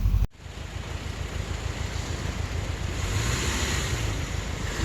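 Sound cuts out abruptly for a moment, then a steady rushing noise over a low vehicle rumble comes in and grows louder: wind buffeting the microphone outdoors.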